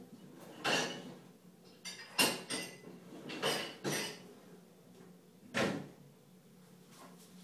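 About six short clatters of dishes and a dishwasher being handled, over a steady low hum; the loudest comes about two seconds in.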